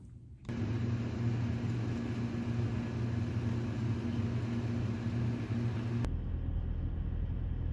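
Steady low mechanical hum with a fixed low tone and an even hiss. About six seconds in it cuts abruptly to a deeper, duller rumble.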